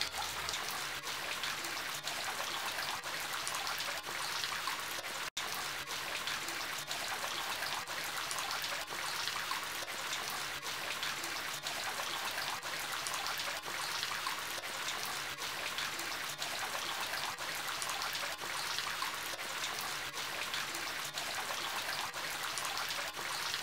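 Steady trickling running water, like a small stream or fountain, with a brief dropout about five seconds in.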